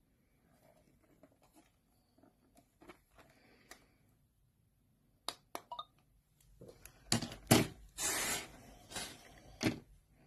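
Two sharp clicks, then a few seconds of loud scraping and rustling, like an object being handled, loudest near the end.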